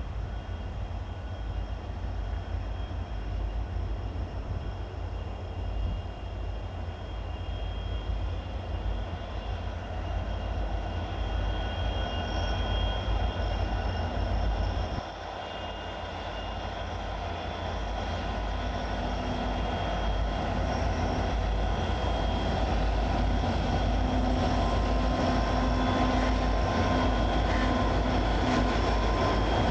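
Coal train hauled by diesel-electric locomotives approaching, a steady low rumble with faint engine tones that grows steadily louder over the second half.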